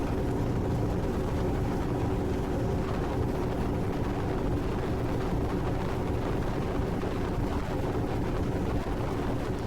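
Combine harvester, almost 40 years old, running steadily with an even, low engine drone.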